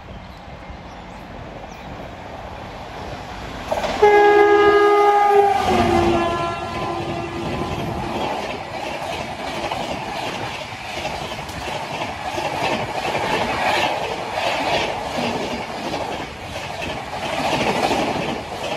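Indian Railways WAP-7 electric locomotive approaching at speed, then sounding its loud horn for about two seconds a few seconds in, the horn's pitch dropping as it passes. LHB passenger coaches then rush by with a steady roar and a rapid clickety-clack of wheels over rail joints.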